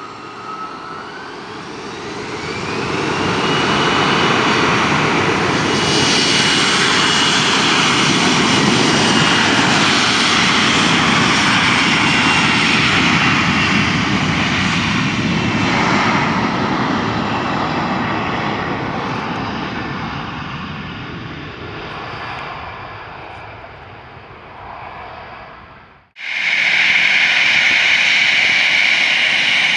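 Jet airliner's engines whining up in pitch and then running loud and steady at high power, the noise slowly fading as the aircraft moves away. Near the end it cuts off abruptly to a second, close jet engine with a strong high whine.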